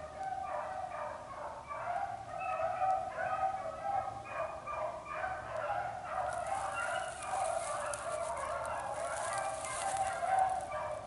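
A pack of beagles baying in many overlapping voices as they run a rabbit's track. From about six seconds in to near the end, a crackling rustle joins them.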